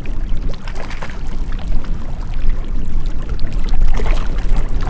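Gusty wind buffeting the microphone, with small waves lapping and splashing against shoreline rocks.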